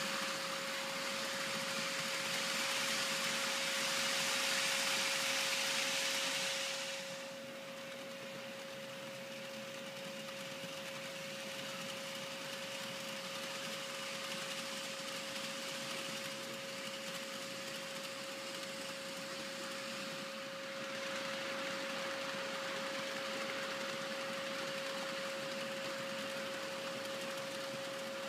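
Model freight train running on a miniature layout: a steady rolling rush of wheels on track with a constant high hum. It is louder for the first seven seconds or so, then drops to a lower steady level as the train carries on.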